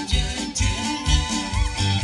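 Live band playing amplified dance music, with guitars over a steady bass-and-drum beat.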